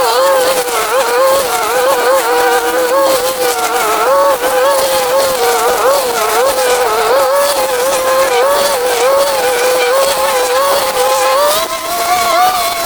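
A small engine running at high speed without a break, its pitch wavering up and down and rising slightly near the end.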